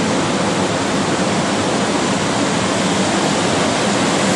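Ocean surf breaking, a steady loud rush of noise, with wind on the microphone mixed in.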